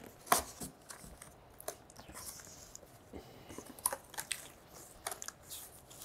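Cardboard box being opened by hand: scattered sharp taps and scrapes of cardboard flaps, the sharpest about a third of a second in, with faint rustling between.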